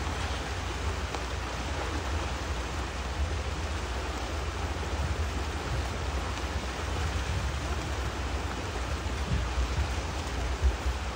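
Fast creek water rushing over rocks, a steady roar of whitewater, with a heavy low rumble underneath that swells briefly a couple of times near the end.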